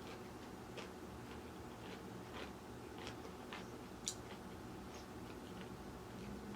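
Faint chewing of crunchy salad, with scattered small crunches and clicks every half second or so.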